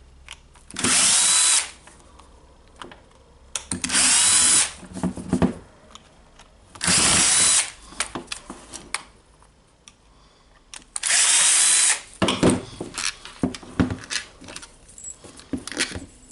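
Electric screwdriver backing screws out of a router housing in four short runs of under a second each, with small clicks and clatter of screws and parts between the runs.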